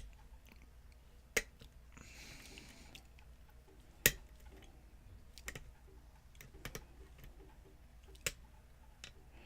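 Lock pick and tension wrench working the pins of a pin-tumbler lock cylinder: scattered sharp metallic clicks, the loudest about four seconds in, with faint scraping between them.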